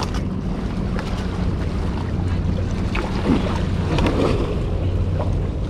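Wind on the microphone and sea water washing against shoreline rocks, under a steady low hum.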